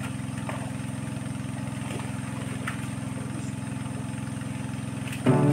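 A small engine running steadily, an even low drone. Music comes in right at the end.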